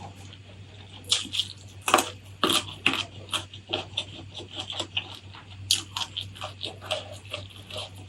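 Close-miked chewing of crunchy food: loud crunches about a second, two and three seconds in and again near six seconds, with quicker, lighter crunching and wet mouth clicks in between.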